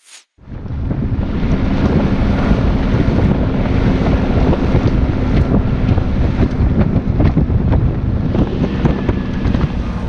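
Waterfall's water rushing close by, a loud steady noise that starts suddenly about half a second in and drops away near the end.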